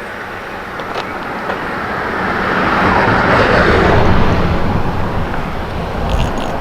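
A passing car: a rushing noise that swells to a peak about three to four seconds in, then fades.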